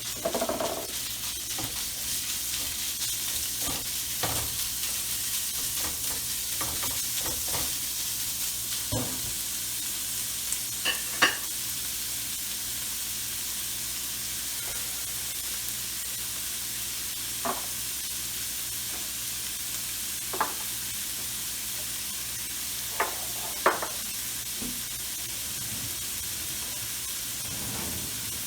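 Ground pork sizzling in hot oil with ginger and garlic as it is stir-fried: a steady frying hiss, louder just at the start, with occasional sharp knocks of the spatula against the pan.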